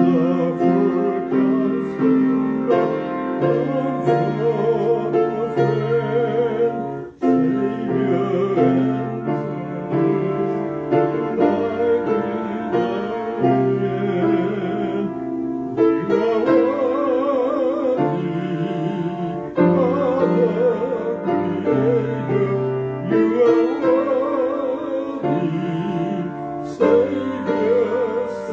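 Piano accompaniment with a solo singing voice that wavers in a wide vibrato, held notes moving from one to the next.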